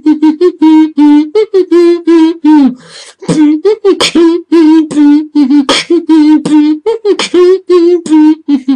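Beatboxing with a tune hummed at the same time: short, buzzy hummed notes mostly on one pitch, with small slides, chopped into a steady rhythm by mouth-made kick and snare sounds.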